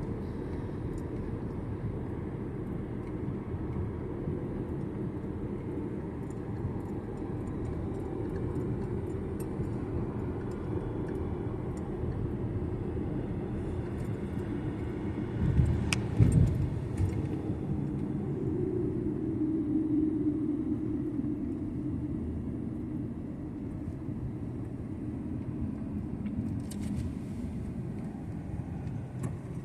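Road noise of a moving car: a steady low rumble of engine and tyres, with one brief loud thump about halfway through.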